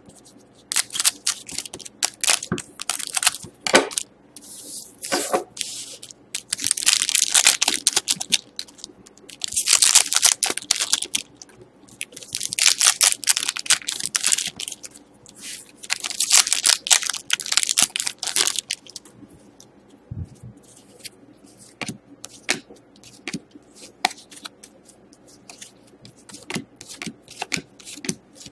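Foil trading-card pack wrappers crinkling as the packs are cut and opened, in several bursts of crackling through the first two-thirds. After that come quieter, sparser clicks of cards being shuffled and flicked through.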